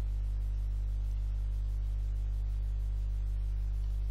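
Steady low electrical hum with a ladder of higher overtones, unchanging throughout, as of mains hum picked up by the recording. A faint hiss lies under it.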